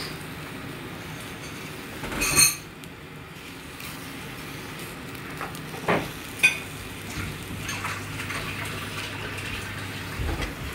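A thin, crisp bánh xèo (Vietnamese rice-flour pancake) sizzling steadily in oil in a non-stick frying pan while a spatula folds it and scrapes under it. The spatula knocks against the pan loudly about two seconds in, and twice more briefly near the middle.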